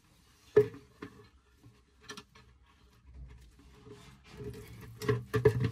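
A sharp knock, then a few light clicks, followed by shuffling and several knocks near the end as a plastic bucket is handled and set down beneath a brass pipe valve.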